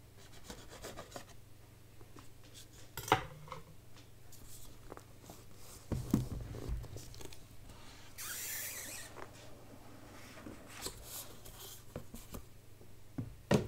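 Cardboard gift box being cut open and handled: a knife slitting the paper seal stickers, with light scrapes and taps, a sharp click about three seconds in, a knock around six seconds, and a short scraping hiss a little past the middle as the cardboard slides. A faint steady low hum lies underneath.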